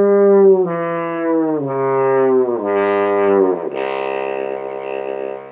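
French horn, fingered first and third valves on the F side, playing a pitch-bending warm-up: five notes descending through the overtone series, each sliding down into the next, ending on a low note held about two seconds.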